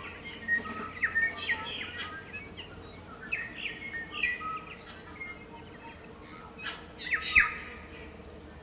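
Tui morning chorus: tui singing a busy mix of short chirps, sliding notes and sharp clicks, with the loudest call near the end.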